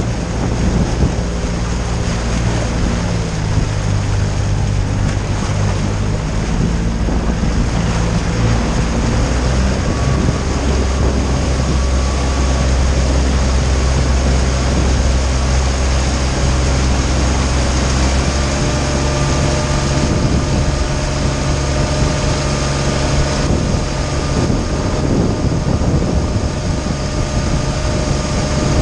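Tohatsu MFS50 four-stroke outboard motor running close by with the boat under way, over the rush of wake and spray against the hull and wind on the microphone. The engine note steps to a new pitch about nine seconds in and again around eighteen seconds.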